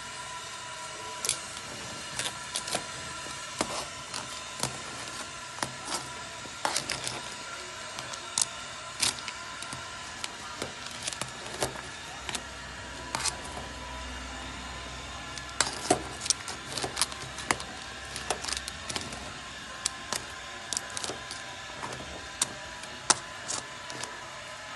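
Metal kitchen tongs clicking and clinking against the pot and the shells of boiling crabs, a long run of irregular sharp clicks over a steady hiss.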